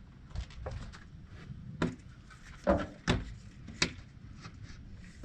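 Several short sharp knocks and clicks of a keyless door lock's keypad assembly being handled and fitted into an RV entry door, at irregular intervals, the loudest two close together a little under halfway through.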